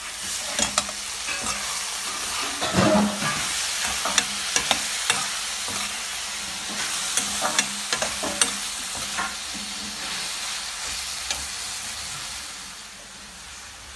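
Brinjal, cucumber, green chillies and tomatoes sizzling as they fry in a metal kadai, stirred with a slotted steel spoon that clinks and scrapes against the pan again and again. The clinks stop and the sizzle drops quieter about a second before the end.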